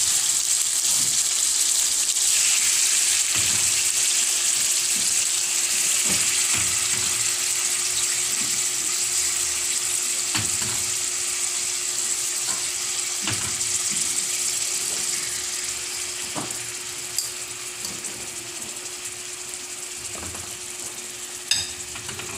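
Raw marinated chicken pieces sizzling in hot oil in a wok with sautéed garlic, onion and tomato, as more pieces are added. The sizzle slowly dies down, with scattered soft knocks and two sharp clinks near the end.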